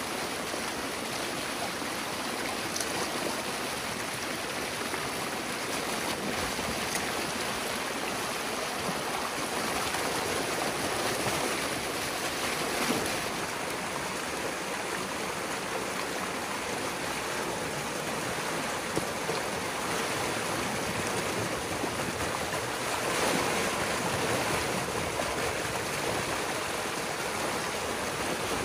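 Floodwater rushing and splashing through a breach opened in a beaver dam, a steady torrent pouring down into the channel below.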